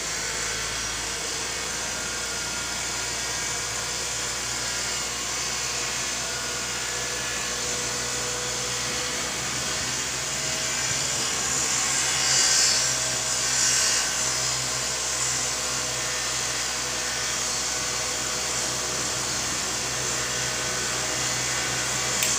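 Gas-fired cotton candy machine running empty: the motor spins the heating head with a steady whirr and low hum while the gas burner hisses, under test for spin and flame setting. The hiss grows louder for a couple of seconds about halfway through.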